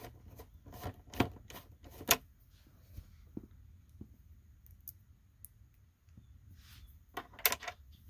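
Screwdriver turning a tight Phillips screw out of a plastic computer back housing: a run of sharp clicks and creaks, the loudest about two seconds in, then faint ticks and another short cluster of clicks near the end.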